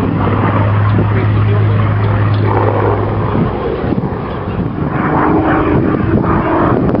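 Hawker Hurricane's Rolls-Royce Merlin V12 engine droning in flight, a steady low tone that drops away about three seconds in, leaving a rougher engine and propeller sound.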